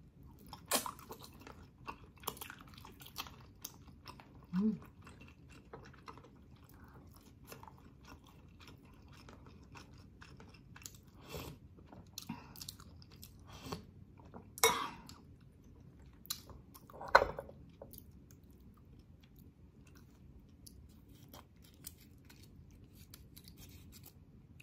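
Close-up chewing and biting of boiled pork hock meat: irregular mouth clicks and smacks, with a short low hum about five seconds in.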